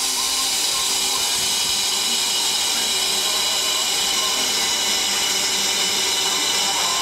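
Stationary TGV PSE power car with its auxiliary equipment running, the typical sound of 1970s–80s Alsthom traction units: a steady, loud hiss with several steady whining tones over it.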